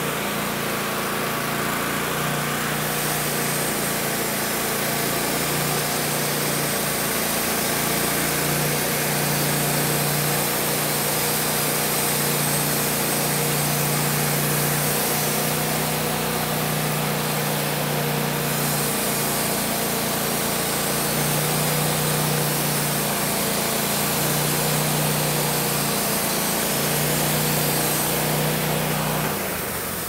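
Wood-Mizer LT15 Wide portable band sawmill sawing through a log: the engine runs steadily under load while the band blade cuts the wood. The sound drops away near the end.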